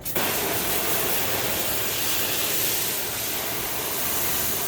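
Water pouring steadily into a plastic tub of soapy bleach water as it is filled, a continuous rushing that starts abruptly.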